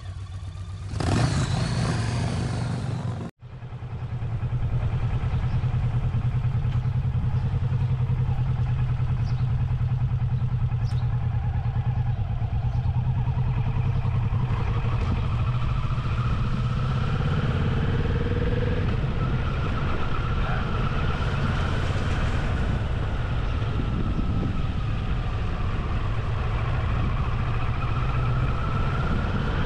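A motorcycle engine revs briefly, cut off abruptly about three seconds in. Then a Kawasaki Vulcan S 650's parallel-twin engine runs steadily, heard from on the bike, while it rides at low speed, its pitch rising and falling a little with the throttle.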